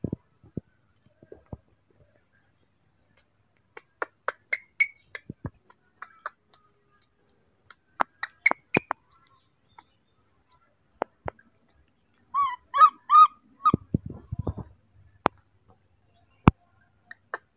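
Baby monkey giving short high squeaking calls in small groups, with a louder run of four squeals about three-quarters of the way through, among scattered sharp clicks and taps.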